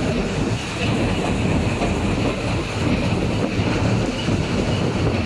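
Narrow-gauge park railway train running along the track, its wheels rumbling steadily on the rails, heard from an open-sided passenger car.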